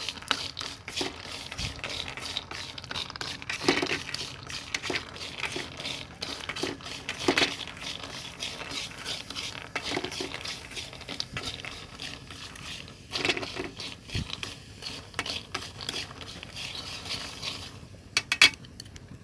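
Peanuts and salt being stirred in a dry metal wok, the nuts and the utensil making irregular small clicks and scrapes against the pan, with a few louder knocks.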